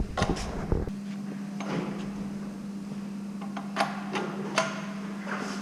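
A few scattered clicks and knocks of tools and metal parts being handled, over a steady low hum.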